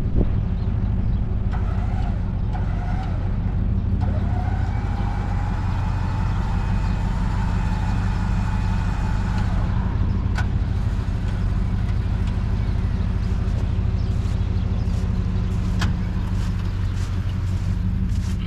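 A vehicle engine running steadily with a deep hum. A higher whine rises in about four seconds in, holds, and stops about nine and a half seconds in, and there are a few sharp clicks later on.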